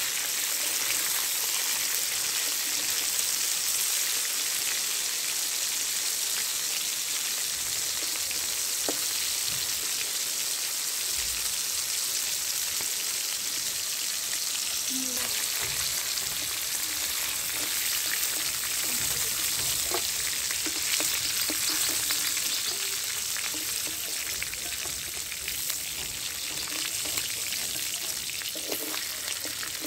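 Turmeric-marinated chicken pieces sizzling steadily in hot oil in a metal wok. A metal spatula stirs and scrapes them, with a few sharp clicks against the pan.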